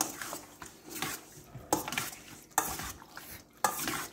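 A metal spoon stirring yogurt-marinated chicken pieces in a stainless steel bowl, scraping through the marinade and clinking sharply against the bowl's side about once a second.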